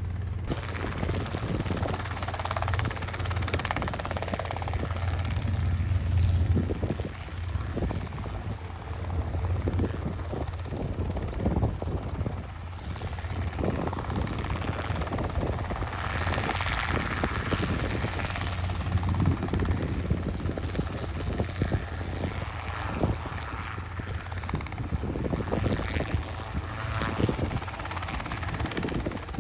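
Training helicopter running: a steady low drone from the engine and rotor, with rapid chopping from the rotor blades.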